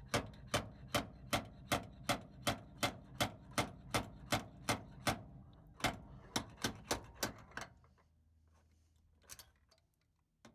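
Hammer tapping on the steel sheet metal of a truck's dented door panel during dent repair: rapid, evenly spaced metallic taps, about three a second, stopping about three-quarters through with two faint taps after.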